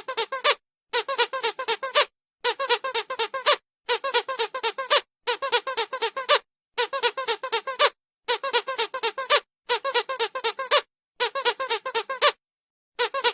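Squeaky dog toy squeezed in quick runs of about six to eight high squeaks, each run lasting a second or so, with brief silent gaps between runs.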